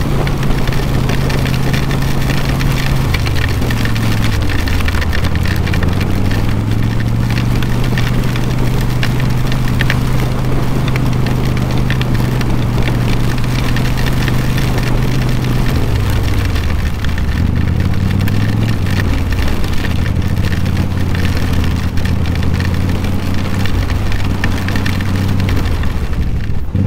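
Yamaha V-Star 1100's air-cooled V-twin engine running steadily under way, over a constant rush of wind and road noise. The engine note drops about four seconds in, then dips and climbs back in a few steps around sixteen to nineteen seconds in.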